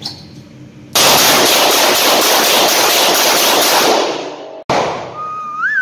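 Revolver fired rapidly at an indoor range, the shots so loud and close together that they merge into one continuous blast of noise for nearly four seconds before cutting off sharply. A second loud burst follows, with a whistling tone that rises and falls near the end.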